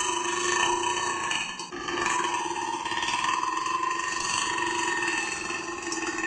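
A girl's long, drawn-out belches at a steady pitch: one lasting about two seconds, then after a brief break about a second and a half in, a second one held for over four seconds.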